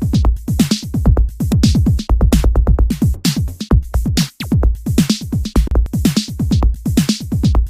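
Electronic dance music with a fast, steady drum-machine beat: deep kicks that drop in pitch and bright hi-hat-like hits.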